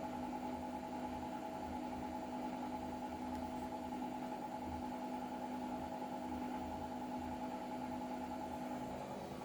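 Hotpoint Ariston AQ83D 29 washing machine in its 800 rpm spin: motor and drum running at a steady speed, a steady whine over a low pulsing rumble.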